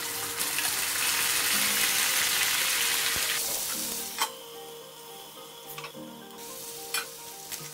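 Wet ground gravy paste hitting hot oil in a frying pan: loud sizzling that dies down over about four seconds. Then a sharp clink as a steel lid is set on the pan, and a muffled simmer with a few faint ticks follows.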